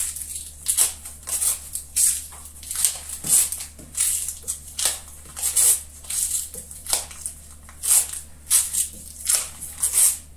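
A CPM 125V steel knife blade making repeated slicing cuts through test material, at a steady pace of about one and a half cuts a second, each cut a short, sharp hissing stroke. This is a cut-count edge-retention test, well past 800 cuts.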